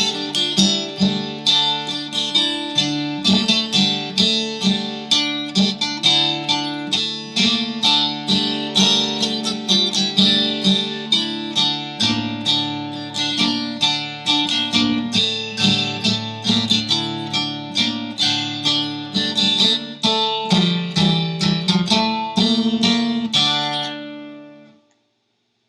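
Guitar music: a steady run of plucked notes over held bass tones, dying away about a second before the end and then stopping.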